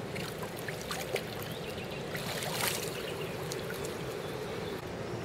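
Shallow river water splashing and swirling as a two-metre wels catfish is released from the hands and swims off, with a louder swirl about halfway through.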